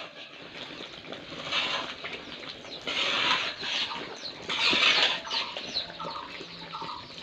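Three short scraping strokes of a ladle in a wide metal pan of curry, then hens clucking in short repeated calls near the end.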